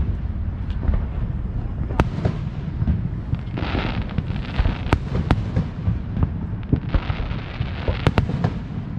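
Fireworks going off: a string of sharp bangs and pops, with two spells of crackling, one about a third of the way in and one near the end, over a steady low rumble.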